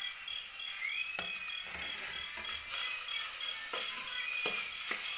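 A metal spoon stirring chopped shallots, onion and garlic frying in oil in a pot, knocking and scraping against the pot about half a dozen times over a light sizzle. A faint, evenly pulsing high chirp runs underneath.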